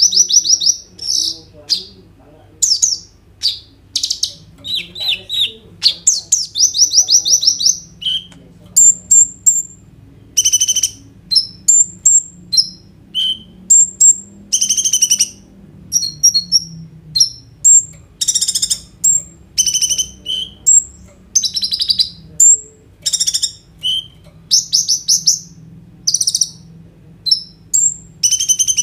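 A caged male kolibri ninja sunbird (Van Hasselt's sunbird) singing loud and fast. In the first few seconds it gives rapid high, buzzy trills, then a long run of short, sharp, high chirps and whistled notes. The phrases vary a great deal.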